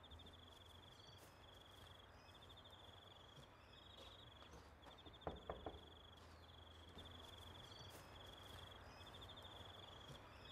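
Faint outdoor ambience: an insect's high, rapid chirping trill, repeating in runs of about a second with short breaks, over a low steady hum. A few soft clicks come about five seconds in.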